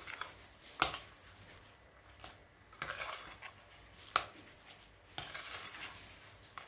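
Utensil stirring thick, stiff dough in a glass mixing bowl: soft scraping with occasional sharp clinks against the glass, the loudest about a second in and about four seconds in.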